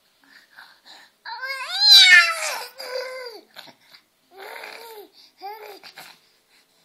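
A baby crying and fussing: one loud, drawn-out cry about a second in, followed by three shorter whimpering cries that rise and fall in pitch.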